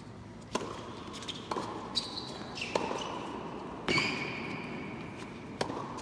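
Tennis rally in an indoor arena: about six sharp hits of the ball off rackets and court, a second or so apart, starting with the serve, with brief high squeaks of shoes on the court between some hits.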